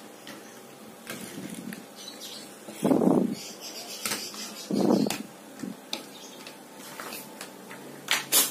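Small toy cars being handled, set down and slid along a wooden tabletop as they are lined up. There are two louder short sounds about three and five seconds in, and a pair of sharp clicks near the end.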